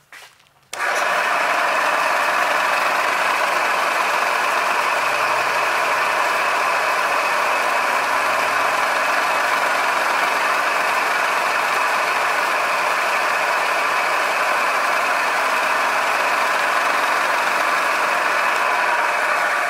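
Vertical milling machine's spindle starting up about a second in and running steadily at speed, a steady machine whine with several fixed tones. Meanwhile a 1/8-inch four-flute end mill is brought down to spot the top of the part a few thousandths deep.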